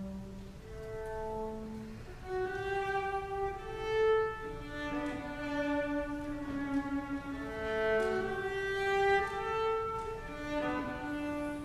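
Solo cello bowing a melody of held notes that move up and down in pitch.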